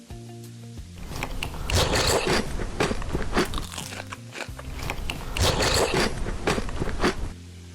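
Crunchy food being bitten and chewed close to the microphone: a quick string of crunches, over soft background music. The crunching stops shortly before the end, leaving the music alone.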